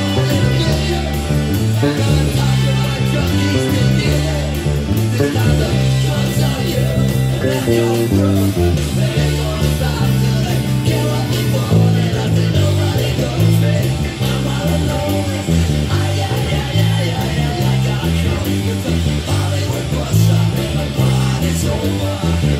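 Fast punk rock recording with guitars and vocals, with a Fender electric bass played fingerstyle along with it, tone knob rolled off, its busy bass line steady throughout.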